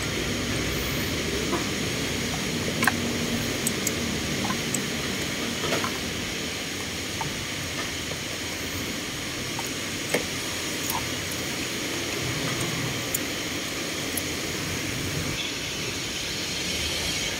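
Steady hissing background noise with a few faint, scattered clicks and taps of hand work on the engine, as a crankshaft position sensor is being fitted.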